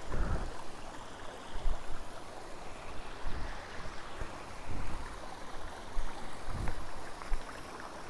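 Steady rush of running water from a hill-stream waterfall, an even hiss with occasional low thumps underneath.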